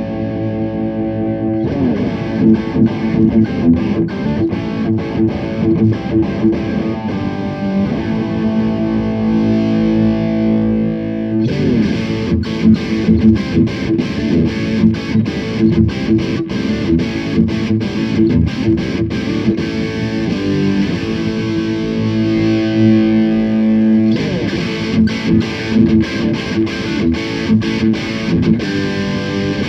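Electric guitar on a Stratocaster's bridge humbucker, driven through a Fire Custom Shop Ultimate Distortion pedal into a Peavey Bandit 112 amp. It alternates fast, chugging picked riffs with heavily distorted chords left to ring for a few seconds.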